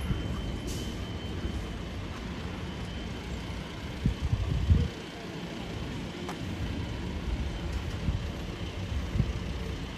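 Fire engines' diesel engines idling, a steady low rumble with a faint steady high tone over it. A short cluster of loud low thumps comes about four seconds in.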